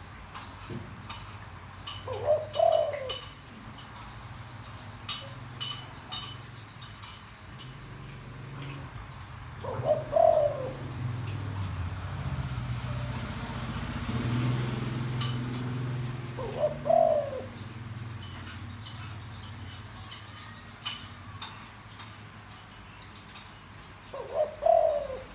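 Deep-voiced spotted dove cooing: four short phrases, one about every seven seconds. A low engine rumble swells and fades between the middle two phrases.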